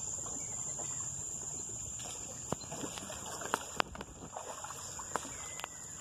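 Wooden canoe paddled through still floodwater: paddle strokes swishing in the water, with several sharp wooden knocks in the second half, over a steady high-pitched drone of forest insects.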